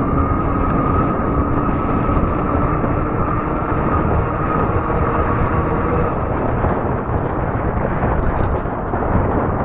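Wind rumbling and buffeting on the microphone of a camera riding on a fat-tire e-bike on pavement. Under it is a steady high whine from the moving bike that fades out about six seconds in.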